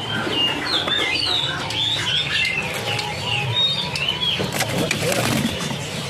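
Many caged songbirds at a bird market chirping and calling over one another in short, warbling notes. A cluster of short, sharp sounds comes about five seconds in, likely a bird fluttering its wings in a cage.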